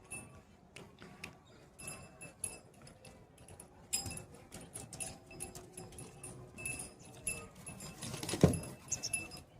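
Light metallic jangling and scattered clinks, with one louder brief sound about eight and a half seconds in.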